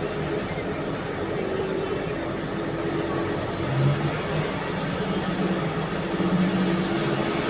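Large diesel engines of heavy mining machinery running steadily under load while an excavator loads a haul truck. The engine hum shifts a little in pitch as the machines work.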